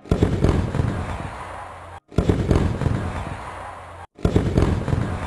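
Fireworks sound effect looping: a sudden burst of crackling bangs that fades away, starting again about every two seconds, three times.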